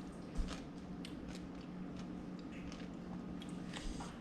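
Chewing a crisp mango habanero pickle: a bite about half a second in, then a run of irregular crunches, over a steady low hum.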